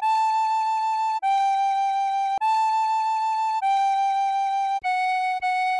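Tin whistle playing a slow, evenly timed melody: A and G alternate, each note held just over a second, then a short F sharp and a second F sharp near the end.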